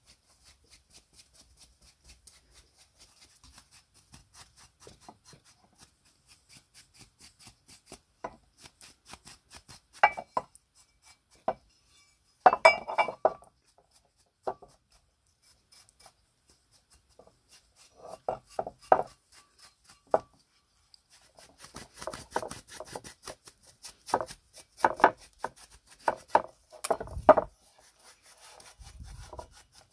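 Hand work at a workbench: faint, even rubbing strokes about two or three a second, then irregular sharp taps, knocks and clinks of hard parts being handled and set down.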